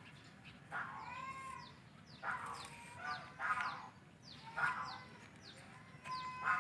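A series of short animal calls, several in quick succession, each with a bending pitch, over a low steady background hum.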